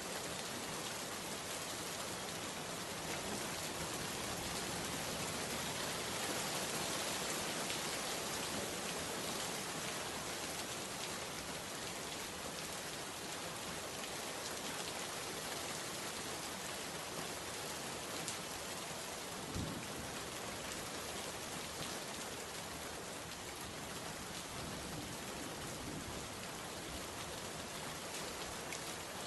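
Steady rain falling in an even, dense hiss, with one brief low thump about two-thirds of the way through.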